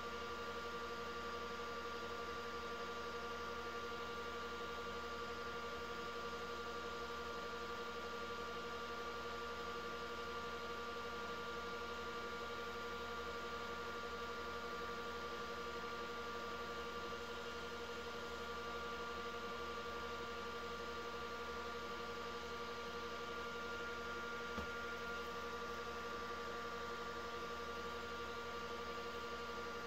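Wood lathe running at a steady speed: a constant motor hum with a few steady whining tones over an even hiss.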